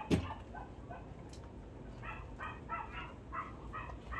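A sharp knock just at the start. Then, from about two seconds in, an animal gives short calls over and over, about three a second.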